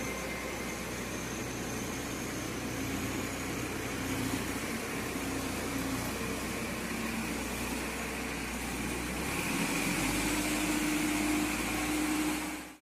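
Manitou 735 telehandler's diesel engine running steadily at low revs, picking up a little about ten seconds in as the machine moves off. The sound cuts off suddenly just before the end.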